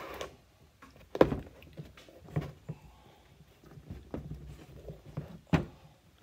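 A lace being pulled through a figure skate boot and the boot handled on a workbench: rustling and scraping, with a few sharp knocks, the loudest about a second in and another near the end.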